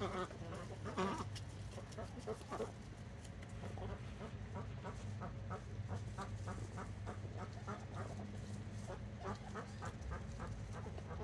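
Domestic ducks chattering in runs of short, soft quacks, about four a second, while they feed, over a steady low hum.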